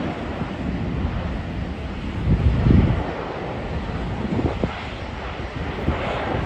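Jet airliner engine noise, an even steady roar, with wind buffeting the microphone; the strongest gust comes a little under three seconds in.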